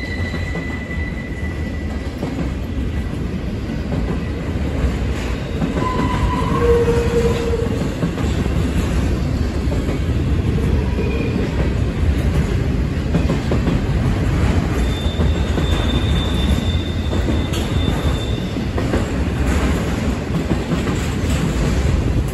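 Intermodal freight train cars rolling past: a steady rumble of steel wheels on rail, broken by a few brief high-pitched squeals from the wheels at different pitches.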